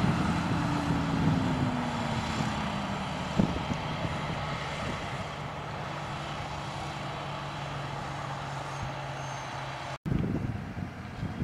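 Heavy diesel farm machinery at a corn harvest running steadily and slowly fading away. Its engine note drops in pitch over the first few seconds and then holds. There is one short knock, and the sound breaks off briefly about ten seconds in.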